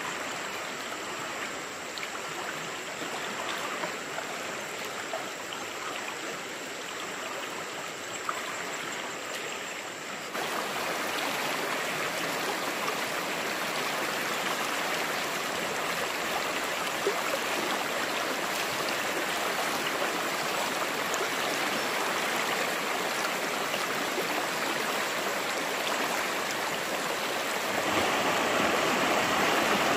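Stream water running steadily, getting louder in two steps, about a third of the way in and again near the end.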